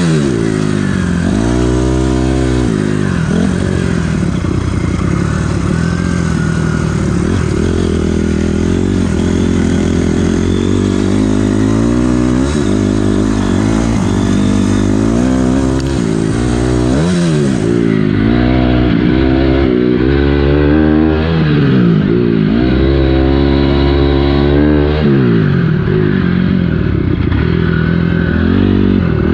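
2006 Honda CRF250R's single-cylinder four-stroke engine being ridden hard, revving up and falling back again and again, heard from on the bike.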